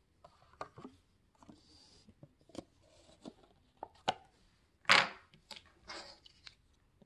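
Paper lid of a Nissin Cup Noodle cup being peeled back and the cup handled: an irregular series of small clicks, crinkles and scrapes, with one louder rustle about five seconds in.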